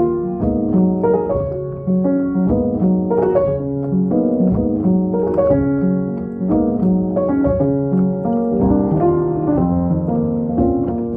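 Piano playing chords and melody notes in a jazz song.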